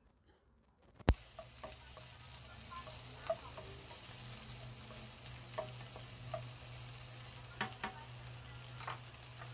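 Salmon, green peas, onion and garlic sizzling in a nonstick frying pan, stirred with a slotted spatula that scrapes and taps the pan now and then. A sharp click about a second in, after which the sizzling and a low steady hum start.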